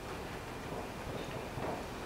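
Steady room noise, a low even hiss, with a faint voice briefly about one and a half seconds in.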